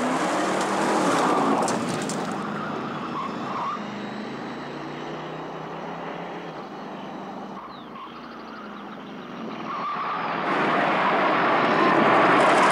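Car engine running hard at speed, with tyre and road noise; it fades in the middle and grows loud again near the end.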